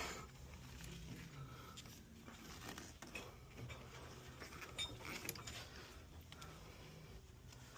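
Faint, scattered light clinks and taps of small hard objects being handled, over a low steady hum.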